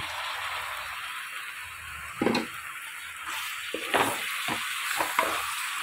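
Macaroni with spinach puree sizzling in a hot kadai as it is stirred, a steady frying hiss with a spatula knocking against the pan several times in the second half.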